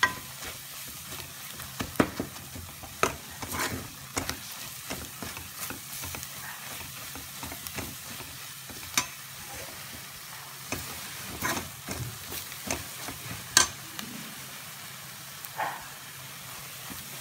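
Onion-spice masala with ground roasted chana sizzling in ghee while a spoon stirs it. The spoon scrapes and knocks against the pan at irregular moments, the sharpest about two seconds in and again about three-quarters of the way through.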